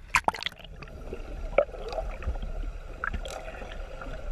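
Water sloshing against a small boat, with a few sharp knocks; the loudest come just after the start.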